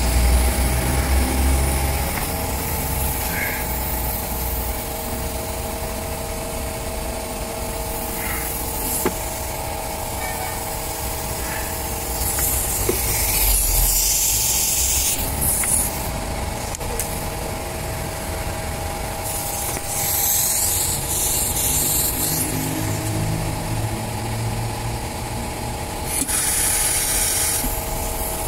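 A machine running with a steady hum, overlaid with several bursts of hissing noise a few seconds long.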